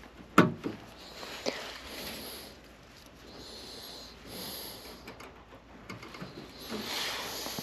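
A person breathing heavily and sniffing close to the microphone, with a sharp knock about half a second in and a few softer clicks of handling.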